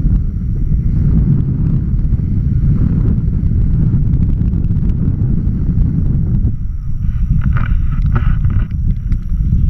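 Wind rushing over the camera's microphone in paraglider flight: a steady, loud, low buffeting rumble, with a short fainter higher-pitched sound near the end.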